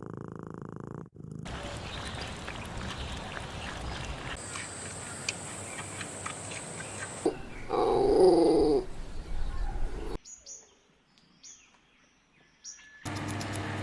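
A run of short clips of animal sounds, with a loud call about eight seconds in and faint short chirps a little later.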